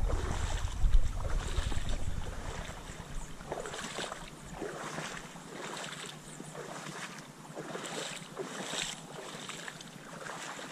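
Footsteps wading through shallow water on a sandy bottom, a splash roughly once a second. Wind buffets the microphone in the first couple of seconds.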